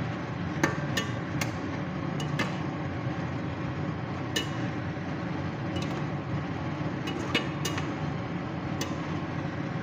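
A spoon stirring chicken in a thick cream sauce in a stainless steel saucepan, knocking against the pan in sharp clinks at irregular intervals, over a steady low hum.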